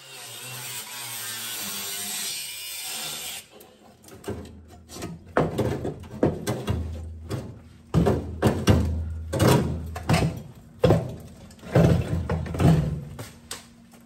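Cordless angle grinder's cutoff wheel cutting through rusted Volkswagen Beetle floor sheet metal, a steady hiss that stops abruptly about three and a half seconds in. Then comes a run of irregular clanks, knocks and scrapes as the cut-out rusty section is worked loose.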